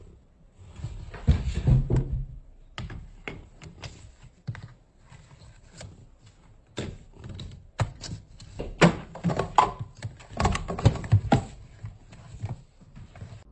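Plastic thread spools and a spool stand knocking and clattering on a granite countertop as a rabbit noses and pushes them about: irregular taps and thunks, in clusters a second or two in, near the middle, and toward the end.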